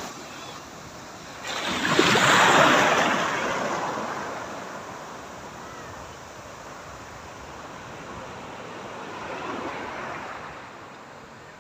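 Sea waves washing through the shallows close by: a loud surge of surf about two seconds in that slowly dies away, and a smaller surge near the end.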